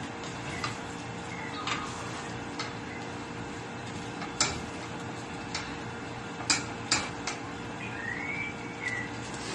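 Wooden spoon stirring food in a stainless steel pot, knocking against the pot in a series of irregular sharp taps over a steady background hum.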